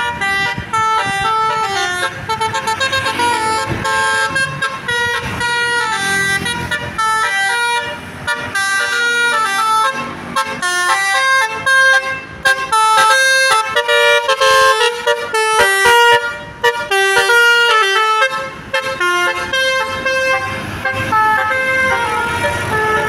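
Basuri telolet musical bus horn playing a fast melody of short stepped horn notes that jump between pitches, with a few brief breaks.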